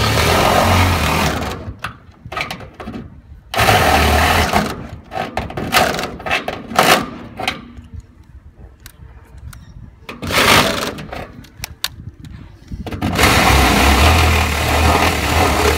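Power drill boring out a bolt hole in the tank wall to make it just big enough for the bolt, running in four bursts, the last and longest near the end, with knocks and taps between.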